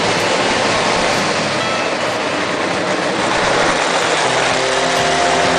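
Marx tinplate electric toy train running close by on three-rail metal track: a steady, loud clatter of its wheels and cars passing.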